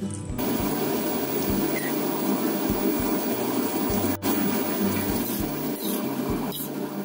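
Sauce simmering in a hot steel wok around stir-fried potatoes, a steady bubbling sizzle that sets in just under half a second in.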